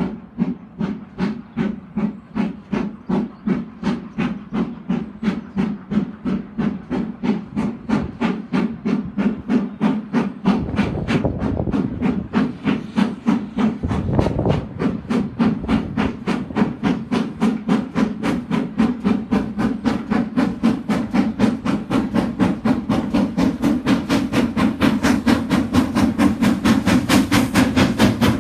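GWR Manor class 4-6-0 steam locomotive accelerating with a passenger train, its exhaust beats quickening from about two to about four a second and growing louder as it draws nearer. A deeper rumble joins the beats from about ten seconds in.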